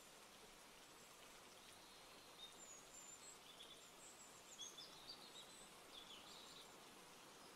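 Near silence: a faint steady hiss, with a few faint, short, high chirps between about two and six seconds in.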